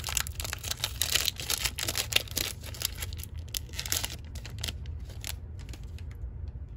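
A foil trading-card pack wrapper being torn open and crinkled in the hands, a dense crackling for about four seconds. After that come fainter, scattered rustles as the cards are slid out of the wrapper.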